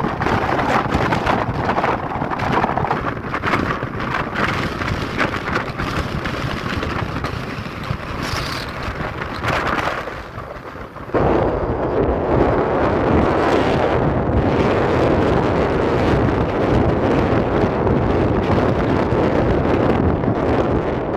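Strong mountain wind blowing in gusts and buffeting the microphone with a low rumble. It eases briefly about ten seconds in, then comes back suddenly, louder.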